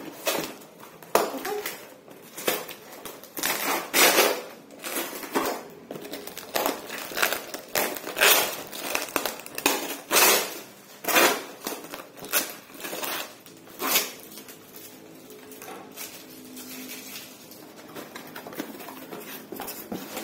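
Packing tape on a cardboard box being cut with scissors and pulled off, with cardboard flaps rubbed and bent open: a quick run of irregular ripping, snipping and scraping noises that thins out after about 14 seconds.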